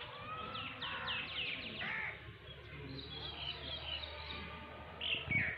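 Songbirds chirping and calling: a quick series of about eight falling whistled notes about half a second in, softer chattering in the middle, and louder falling calls near the end.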